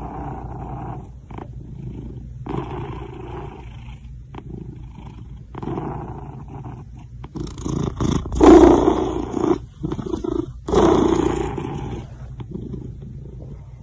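A pet animal making a series of noisy, unpitched vocal sounds. The two loudest come about eight and a half and eleven seconds in.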